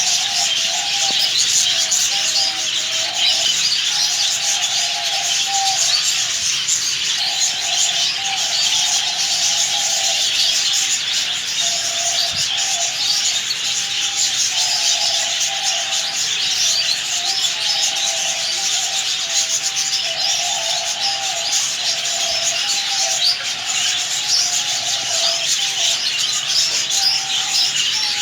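Many birds chirping at once in a continuous dense chatter, with a lower call repeating in broken stretches underneath.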